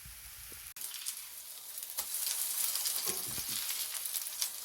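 Grated-potato pancakes (draniki) sizzling in hot fat in a frying pan, the sizzle growing louder about two seconds in, with a few light knocks.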